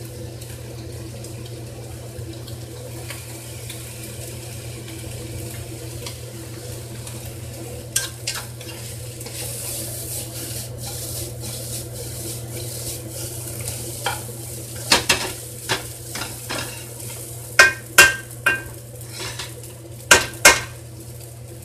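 Vegetables and udon noodles stir-frying in a wok over a gas flame: a steady sizzle that grows louder while the pan is tossed around the middle. A wooden spatula scrapes and knocks against the pan several times in the second half.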